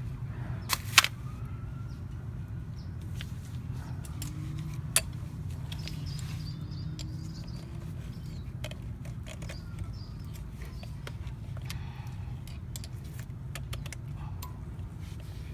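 Small metal clicks and clinks of hand tools and the extracted bolt being handled: two sharp clicks about a second in, a louder one about five seconds in, then scattered light ticks, over a steady low hum.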